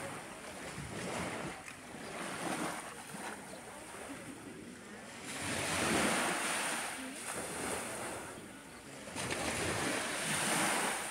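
Small waves washing in on a sandy beach, the wash swelling and fading several times, loudest about six seconds in and again near the end.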